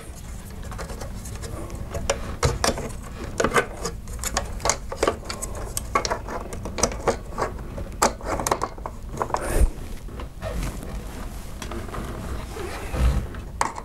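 Irregular clicks, taps and rustling handling noise as electrical wires are folded into a blue plastic ceiling box and a white lampholder is pressed up onto it, with a couple of dull thumps.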